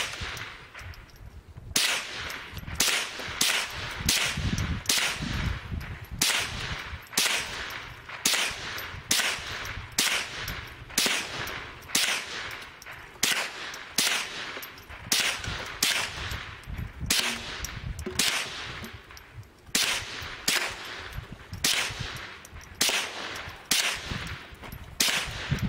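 Ruger 10/22 semi-automatic .22 LR rifle, in a bullpup stock with a muzzle brake, fired in a steady string of single shots, roughly one a second. Each crack trails off in a short echo.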